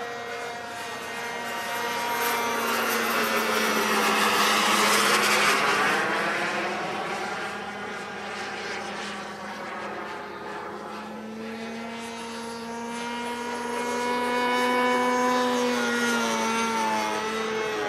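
Radio-controlled Panther model jet flying past overhead, its engine whine bending in pitch and swelling louder twice as it passes.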